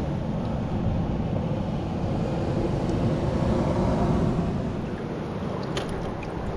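Wind buffeting the microphone as a steady low rumble, over the wash of surf on a rocky shore. A few light clicks near the end.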